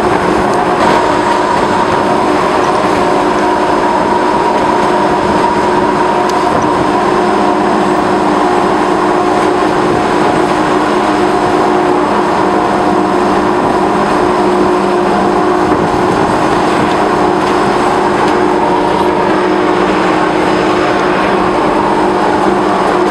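Steady running noise of a moving narrow-gauge train heard from on board: the diesel locomotive just ahead droning, with several steady tones, over the rumble of wheels on the rails.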